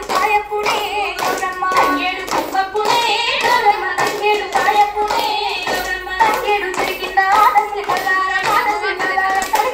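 A group of women clapping their hands in a steady rhythm as they dance in a circle, with singing over the claps.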